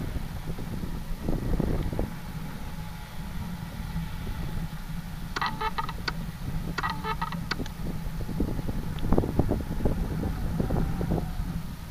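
Wind buffeting the microphone of a camera on a rising high-altitude balloon payload: a steady low rumble, with irregular flapping knocks in the second half. About five and a half seconds in come two short bursts of rapid electronic beeping, each about a second long.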